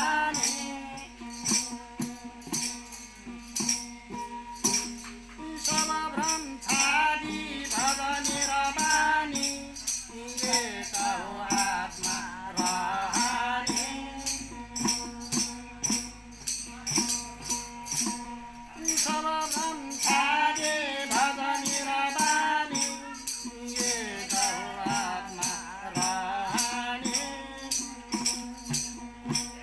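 Devotional group singing in phrases with short gaps between them, over a steady drone from long-necked stringed instruments. Jingling frame drums and small hand cymbals keep an even beat of about three strokes a second.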